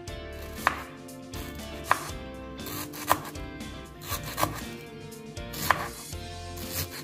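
Kitchen knife slicing a torch ginger (kecombrang) bud into rings on a cutting board: a sharp knock of the blade on the board about once a second.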